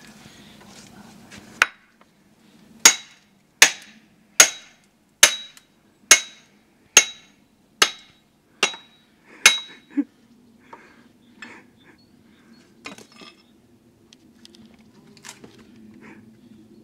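A run of about ten sharp knocks on something hard and ringing, one every second or less, each with a short metallic ring; faint scattered ticks follow.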